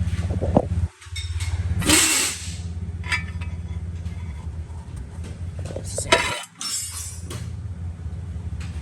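Dodge Caravan 3.3-litre V6 idling with a steady low rumble; the van has an intermittent cylinder 3 misfire. Clattery handling noise about two seconds in and again near six seconds, and the sound cuts out briefly twice.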